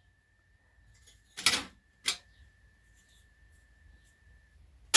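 Metal parts of a stereo chassis being handled during disassembly: a loud clatter about one and a half seconds in, a sharp click just after, scattered light ticks, and another clatter at the very end. A faint steady high tone sounds through the middle.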